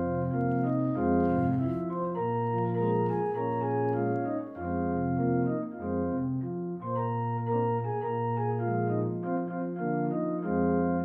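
Organ playing a closing postlude: slow, sustained chords over a moving bass line.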